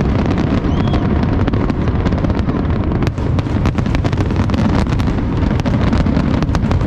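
Fireworks going off without a pause: many overlapping bangs merge into a continuous low din, with frequent sharp cracks on top.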